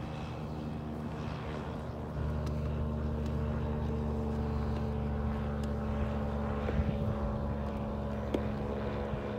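Small float plane's propeller engine droning steadily as the plane runs across the water on its floats. A low rumble grows louder about two seconds in.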